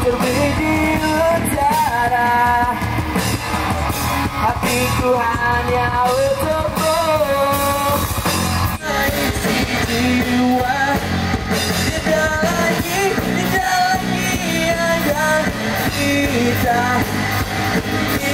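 Rock music with a singing voice over drums, bass and electric guitar.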